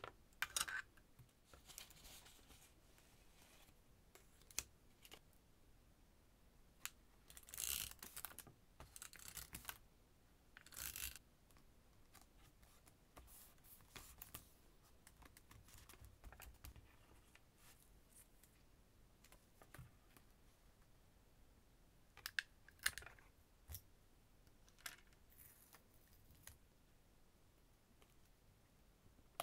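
Scattered quiet stationery handling: clicks and taps of washi tape rolls and tools set on the desk, and a few short rustles and scrapes of paper and tape being handled and pressed onto a journal page, the loudest about eight, eleven and twenty-three seconds in.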